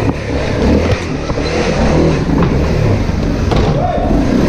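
Dirt bike engine running and revving as the bike is ridden, its pitch rising and falling with the throttle, with a rise in pitch near the end.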